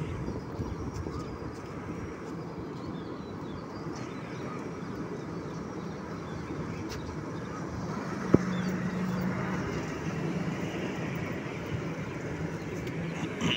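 Passenger train running on the track, a steady low rumble with a faint hum under it; a single sharp click about eight seconds in.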